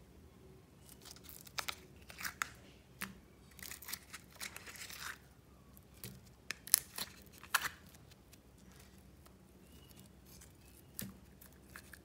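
Glitter slime being peeled out of a silicone ice-cube tray and set down in a glass bowl: scattered sticky clicks, pops and short crackling rustles, which go quiet for a few seconds near the end before one more click.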